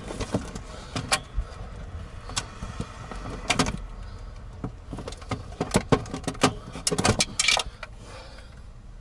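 Hands rummaging through a tangle of cables and their plastic connectors: irregular clicks, clacks and rustles, busiest in the second half, then settling.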